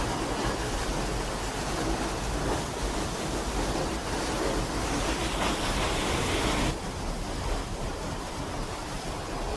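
Waterfall rushing: a steady roar of falling water. About two-thirds of the way in it suddenly becomes quieter and duller.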